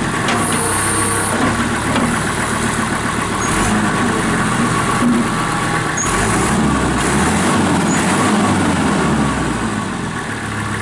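Kubota M5400 tractor's diesel engine running steadily, its note shifting a little midway.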